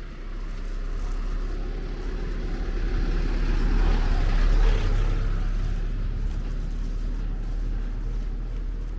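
A motor vehicle's engine going past, a low hum that swells to its loudest about halfway through and then fades away.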